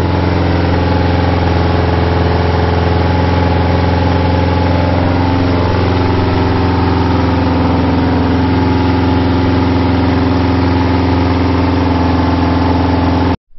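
Freshly built Subaru EJ207 turbocharged flat-four, fitted with unequal-length headers, idling steadily on its first run after the build. It cuts off suddenly near the end.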